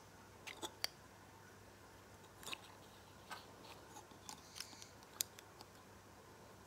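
Faint scattered clicks and taps of small plastic Lego minifigure parts being handled and pressed together, ending in a louder snap.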